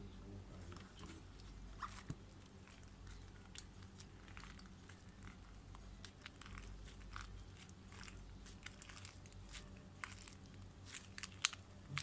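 Homemade slime being squeezed and kneaded by hand, giving faint sticky clicks and crackles that come thicker over the last few seconds. A steady low hum lies underneath.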